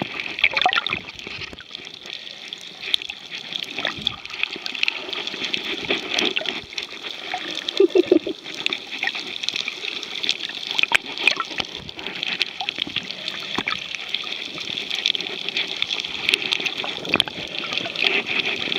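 Underwater noise picked up by a submerged camera: a steady watery hiss with many scattered clicks and crackles. About eight seconds in there is a short, louder wavering sound low down.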